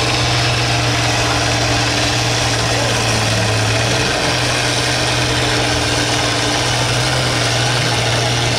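Small-block gasoline V8 of a 1970s Ford F-series pulling truck idling steadily and loudly at the start line before its pull.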